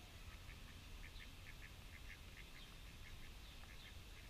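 Ducks calling faintly in a quick run of short notes, a few a second and often in pairs.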